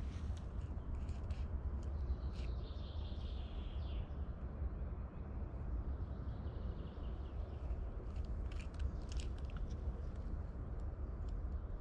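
Steady low rumble of wind outdoors, with scattered light rustles and clicks as a nylon tarp and its cord are handled, and faint bird chirps.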